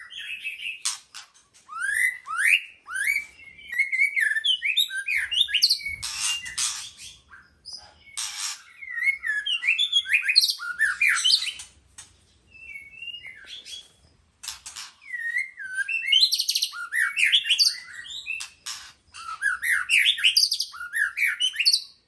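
White-rumped shama singing: fast runs of varied whistled notes sliding up and down, mixed with harsh rasping calls, in phrases broken by short pauses.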